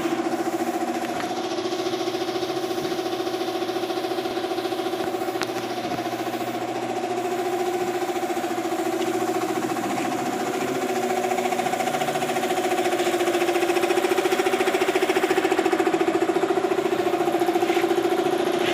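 Air compressor running steadily: a constant mechanical hum with a fast, even pulse, getting a little louder in the last few seconds.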